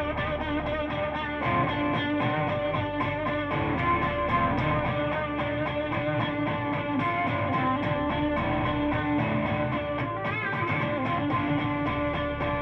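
Instrumental music led by guitar, with a steady beat and no singing.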